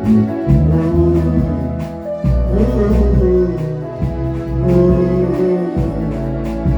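Worship backing music with held notes, a bass line and a steady beat.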